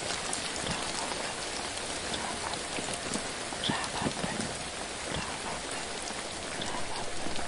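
Steady rain, an even hiss dotted with scattered individual drop ticks.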